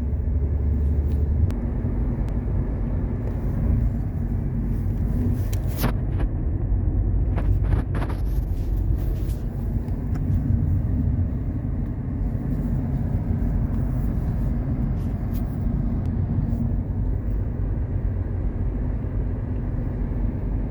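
A car driving along: a steady low rumble of engine and road noise, with a couple of brief clicks about six and eight seconds in.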